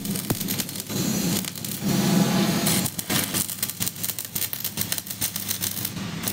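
Stick-welding arc crackling and sizzling as a coated electrode is run along a joint on a steel gate frame, over a low steady hum.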